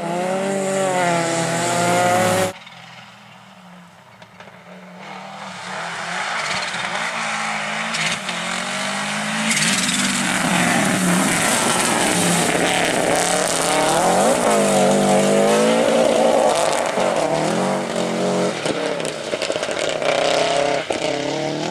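Rally car engines at full attack on a gravel stage. A car revs hard for the first couple of seconds before the sound cuts off suddenly. After a quieter stretch, a turbocharged Subaru Impreza Group N rally car approaches and runs loud, its engine note rising and falling through repeated revs and gear changes.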